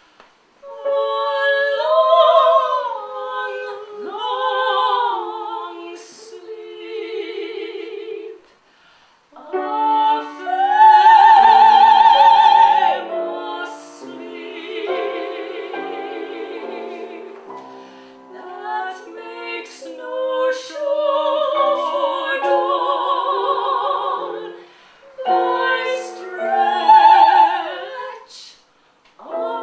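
Two women singing a classical art-song duet in operatic style with wide vibrato, the voices sometimes overlapping, in long phrases broken by short pauses about a third of the way in and again near the end.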